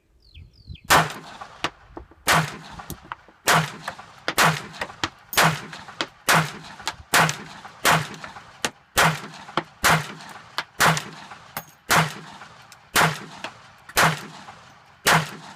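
Ruger LCP .380 pocket pistol fired in a steady string of about fifteen shots, a little under one a second, each a sharp crack with a short ring-out, emptying a 15-round extended magazine.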